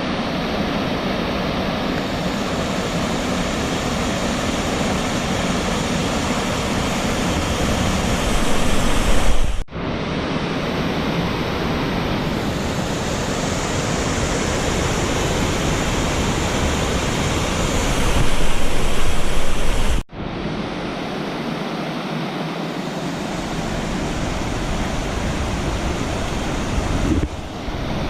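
Rain-swollen creek rushing over small rock waterfalls: a steady, loud rush of water, heard in three stretches with abrupt breaks about ten and twenty seconds in. It grows louder for a second or two before each break.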